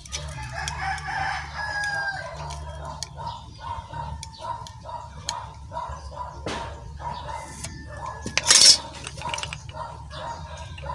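A rooster crowing, one long call in the first couple of seconds, followed by a run of short repeated clucking calls. A brief loud noise cuts in about eight and a half seconds in.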